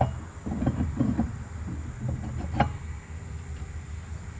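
Metal propeller being fitted onto the end of a long-tail mud motor's drive shaft: knocks and clatter in the first second or so, then one sharp metallic clink about two and a half seconds in, over a low steady rumble.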